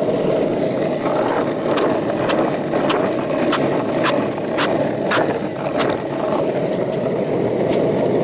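Longboard's wheels rolling over asphalt: a steady, loud rolling noise, with a run of sharp clicks about two a second from about one to six seconds in.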